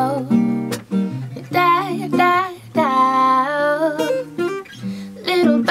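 A woman singing a slow melody with bending, wavering notes over strummed acoustic guitar, holding one long note about three seconds in.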